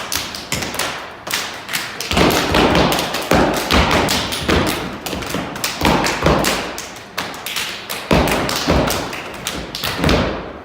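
A step team stepping: a fast, loud rhythm of foot stomps, claps and hand slaps, which stops abruptly at the end.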